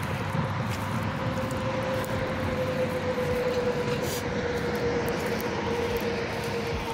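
Heavy vehicle traffic on a highway: a steady drone of tyres and engine, with a held engine tone that sinks slowly in pitch as a truck goes by.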